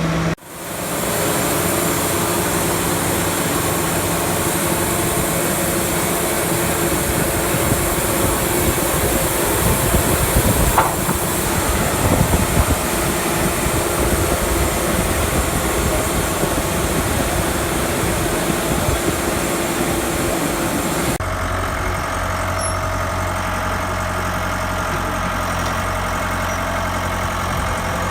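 Wood-Mizer LT70 sawmill running with a loud, dense mechanical noise. About 21 seconds in, the sound changes abruptly to a steadier, lower engine hum.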